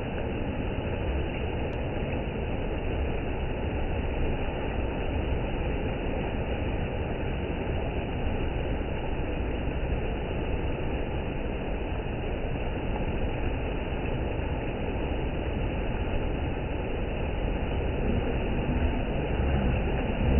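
Steady rush of a fast, shallow river running over rocky rapids, a constant low roar of water.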